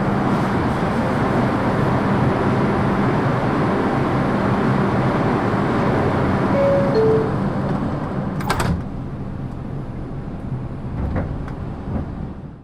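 New York City subway train standing at the platform with a steady hum and rush of noise. A two-note door chime, high then low, sounds about six and a half seconds in, and the doors shut with a sharp bang about two seconds later, after which the noise is lower.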